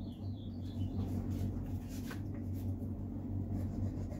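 Light knocks and rubbing of pine boards being moved on a wooden workbench, over a steady low hum. A few faint high chirps near the start.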